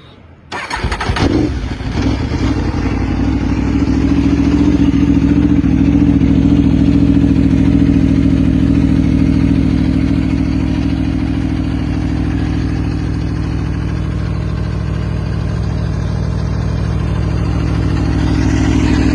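Aprilia V4 motorcycle with a Leo Vince aftermarket exhaust starting up: it catches about half a second in with a quick flare of revs, then settles into a steady, loud idle.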